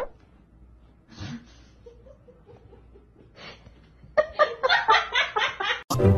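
A person laughing: a couple of short, faint chuckles, then from about four seconds in a run of quick laughing pulses.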